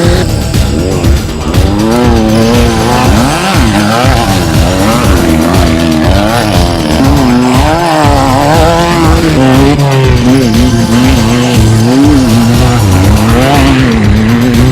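Off-road race truck's engine revving up and down over and over, its pitch rising and falling about once a second.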